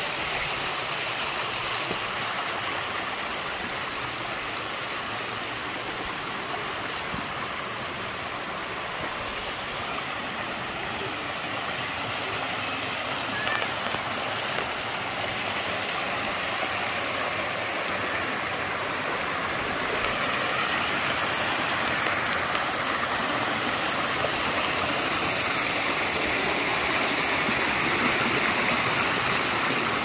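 A shallow rocky stream rushing and splashing over stones, roots and a small cascade: a steady water noise that grows somewhat louder over the last ten seconds.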